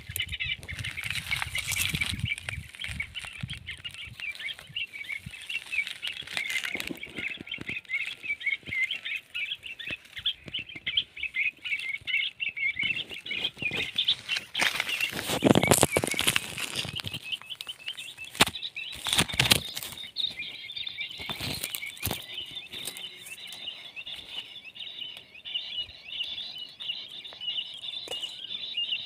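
A quail caught in a wire net flapping its wings and struggling, in several sudden rustling bursts, the loudest about halfway through and again a few seconds later. A dense, steady high chirping goes on under it throughout.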